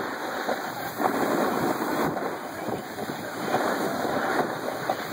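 Steady scraping rush of a board sliding over packed, tracked-up snow at speed, with wind buffeting the microphone; it swells and fades as the edges bite.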